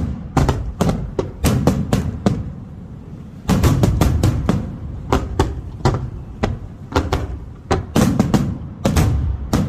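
Aerial fireworks bursting in quick, irregular succession: sharp bangs and cracks, each with a low rumbling echo. The bursts thicken into a denser, louder barrage about three and a half seconds in and again near the end.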